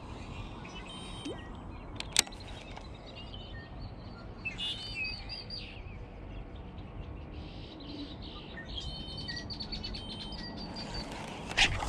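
Songbirds chirping and singing in two spells, about four seconds in and again from about nine seconds, over a steady low background noise. A single sharp click comes about two seconds in.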